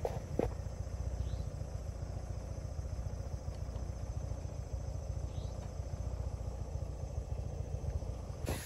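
Steady night-time chorus of insects in rural forest, with a low, even rumble underneath and a faint chirp now and then.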